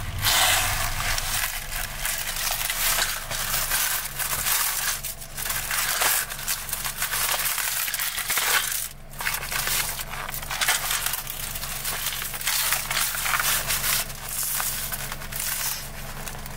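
Honeycomb kraft packing paper crackling and rustling as it is crumpled and pulled apart by hand to unwrap a small boxed parcel. A steady low hum runs underneath.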